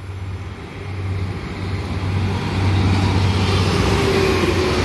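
Stadler GTW diesel multiple unit approaching and passing close by: a steady low engine drone under rising wheel-on-rail noise, growing louder over the first three seconds and then holding.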